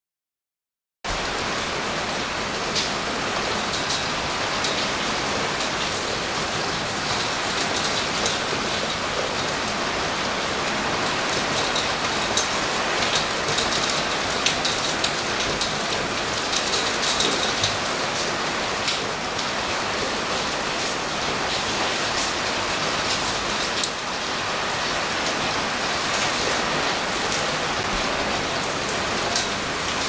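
Heavy typhoon rain falling on roofs and the wet street: a steady, dense hiss with scattered sharper drop ticks. It starts about a second in.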